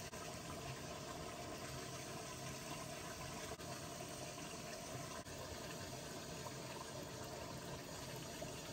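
Faint steady watery hiss, with a couple of soft clicks as strips of raw buffalo meat are hung by hand on an iron rod.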